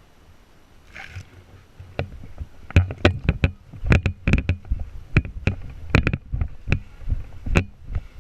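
A quick, irregular series of sharp knocks and clicks, several a second, starting about three seconds in after a quieter stretch.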